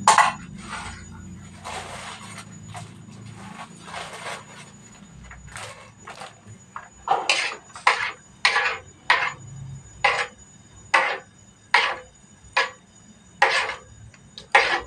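A spatula scraping and knocking against a wok while an egg is broken up in it. It starts as light scattered scrapes, then from about halfway through becomes a regular run of sharp strokes, roughly one a second.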